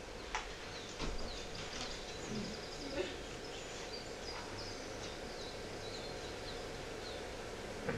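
Birds chirping over a steady outdoor hiss, a string of short, quick, high falling chirps, with a few soft knocks in the first few seconds.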